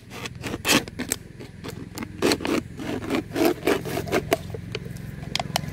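A thin plastic drink bottle being cut open with a knife: irregular crackling and scraping of the plastic as the blade works through it and the bottle is handled.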